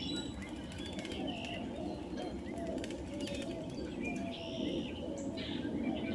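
Brown thrasher bathing in a shallow stone bird bath, splashing water with quick wing flicks, while other birds call in the background with short high chirps and brief low notes.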